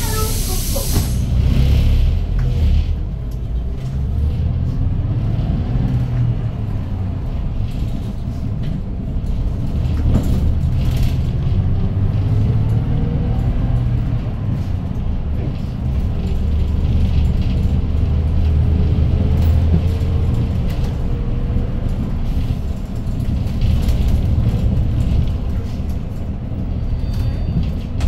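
Hyundai GreenCity city bus's C6GA compressed-natural-gas engine, heard from inside the cabin, pulling away from a stop and accelerating, its pitch climbing as it works through the manual gears. A hiss of air in about the first second.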